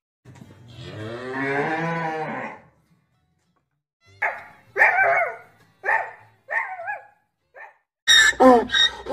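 A cow gives one long moo, about two and a half seconds, that rises and falls in pitch. A cat then meows five times in short calls, and dogs start barking near the end.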